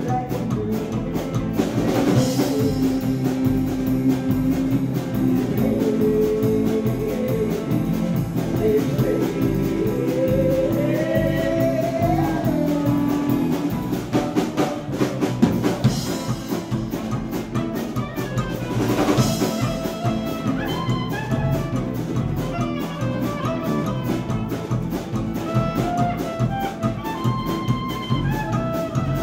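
Live Americana band playing: a clarinet plays melody lines over loud drums, electric bass and strummed acoustic guitar.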